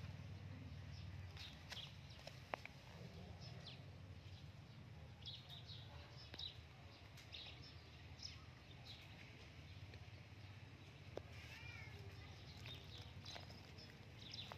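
Faint outdoor ambience: small birds chirping now and then over a low steady hum, with a short run of warbling call notes about twelve seconds in.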